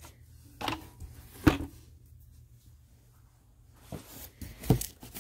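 Handling and movement noises: a few soft rustles and knocks, with one sharper knock about a second and a half in and a cluster of small knocks near the end.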